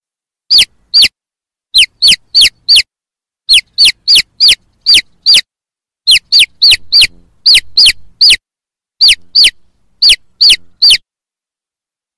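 Chick peeping: loud, high calls that each fall sharply in pitch, repeated about twice a second in groups of two to four.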